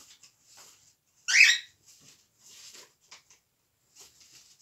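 Paper and card rustling as birthday cards and envelopes are handled, in short soft bursts, with one louder, brief high-pitched sound about a second and a half in.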